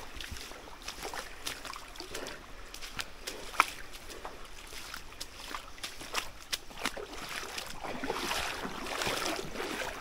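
Footsteps splashing and sloshing through shallow flowing water over slick rock, with irregular sharp splashes over the steady trickle of the stream. One splash a little over three and a half seconds in stands out, and the water gets louder near the end.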